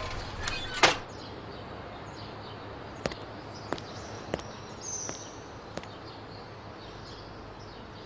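Footsteps on a hard garden path: a handful of sharp steps about two-thirds of a second apart, over a faint steady outdoor background. A single knock comes about a second in, and a short high chirp near the middle.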